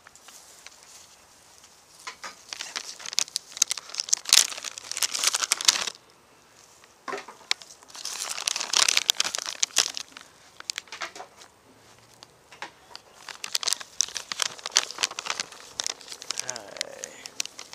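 Close crinkling and rustling in three bursts of a few seconds each, with quieter gaps between them.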